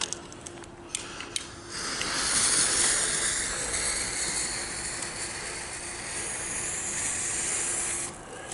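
Small Weco ground fountain (Lemon Spider fountain, category F1 youth firework) catching about two seconds in after a few clicks, then hissing steadily as it sprays sparks.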